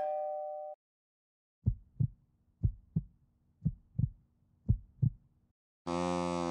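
Heartbeat sound effect: four double thumps, about one a second, building suspense. About six seconds in, a loud buzzer sounds for about a second and a half, the game-show signal for failure. A short held electronic note ends the music at the very start.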